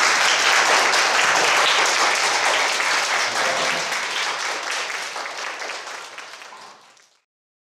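Crowd applauding with steady, dense clapping, which fades out and stops about seven seconds in.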